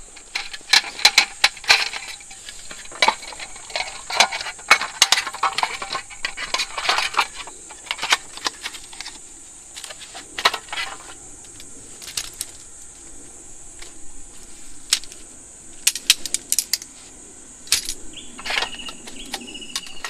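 Aluminium folding camp table being taken apart and packed: light metallic clinks and rattles of the slat tabletop and frame poles, coming in quick clusters.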